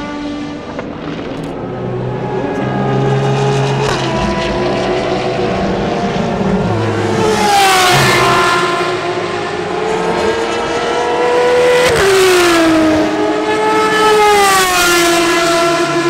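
Ferrari FXX-K Evo's V12 accelerating hard past on track, its note climbing and then dropping sharply twice, about halfway through and again near three-quarters, as it shifts up, growing louder as the car comes close.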